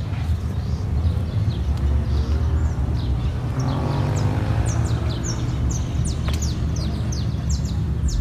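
Low, steady rumble of car engines running slowly, swelling about four seconds in. Many short high chirps sound over it, thickest in the second half.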